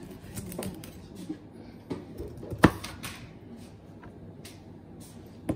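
Chef's knife cutting broccoli florets: scattered soft cuts and light knocks, with one sharp knock about two and a half seconds in.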